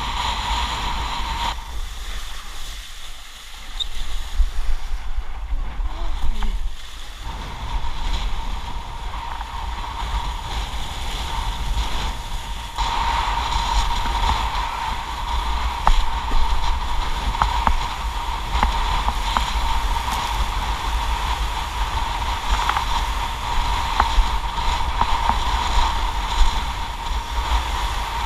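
Wind buffeting the action camera on a windsurf rig, a steady low rumble, over the rush and splash of the board planing through choppy sea. The noise eases for a couple of seconds early on, then stays loud.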